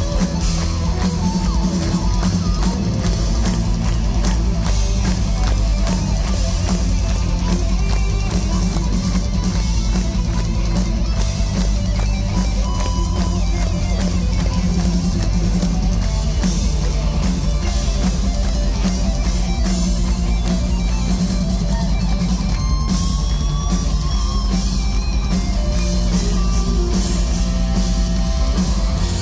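A live power metal band playing an instrumental passage at full volume: distorted electric guitars, bass guitar and a drum kit, heard from within the audience.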